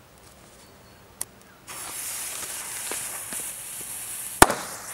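Tigre E-4 firecracker's lit fuse hissing for about two and a half seconds, then the firecracker going off with a single sharp bang.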